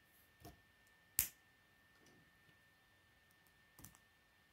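A few sharp plastic clicks and taps as K'nex pieces are picked up and handled on a wooden tabletop, the loudest a little over a second in.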